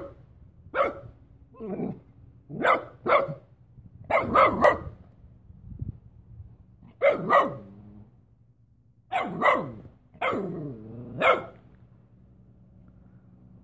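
Puppy barking repeatedly: short, sharp barks, single or in quick runs of two or three, with one longer bark falling in pitch just after ten seconds in. The barking stops near the end.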